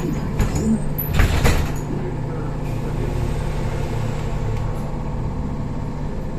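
Steady hum and running noise of a BKM 321 trolleybus heard from inside the cabin while it moves. There is a brief clatter about half a second in and a louder burst of noise a little over a second in.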